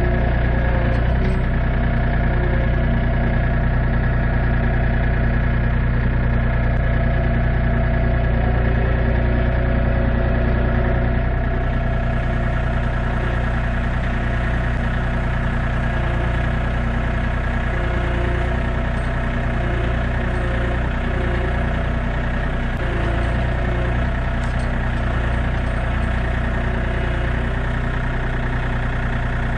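John Deere 3025 compact tractor's diesel engine running steadily under the backhoe, a little quieter from about eleven seconds in.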